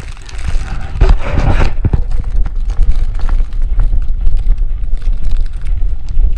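Wind buffeting the microphone in a snowstorm: a heavy, uneven low rumble, with a stronger, brighter swell about a second in.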